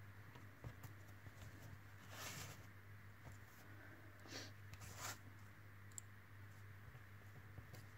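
Near silence: a low steady hum, with a few faint brief rustles and light scrapes of thin craft wire being worked by hand through a wooden template.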